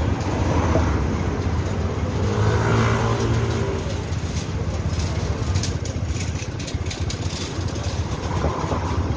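City street traffic: motor vehicle engines running and passing close by, with one engine's hum strongest about two to four seconds in.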